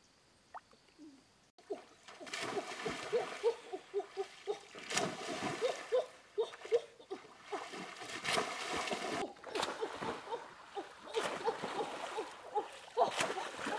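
Shallow river water being splashed, with many short plops and gurgles in an irregular run. The splashing starts about two seconds in.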